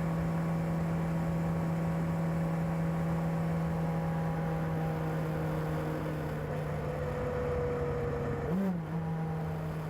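Kawasaki ZR-7S's air-cooled inline-four engine with its stock exhaust, running at a steady engine speed that eases down slightly, with one quick rise and fall in pitch near the end.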